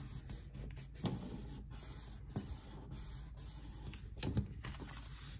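Stacked sheets of copy paper rustling and sliding as they are folded and pressed flat by hand, with a louder scrape about four seconds in.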